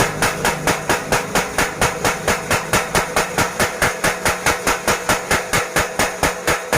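Mechanical power hammer striking iron at a forge in a steady, even rhythm of about four blows a second, over the low steady hum of its motor.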